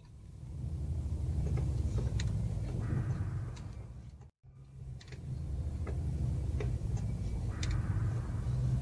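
Jeep Wrangler Rubicon crawling through deep snow, heard from inside the cab: a steady low engine and drivetrain rumble with scattered sharp clicks and knocks. The sound cuts out for a moment a little over four seconds in, then picks up again.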